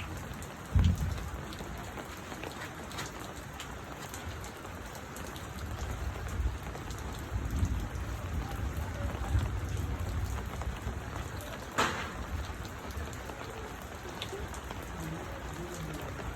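Steady rain falling, with a heavier low rumble through the middle and a sharp knock about twelve seconds in.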